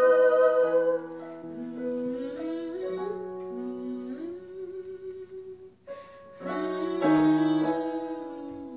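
Digital keyboard playing the soft closing bars of a song in sustained, ringing notes. After a brief gap, a last, louder chord sounds about seven seconds in and fades away.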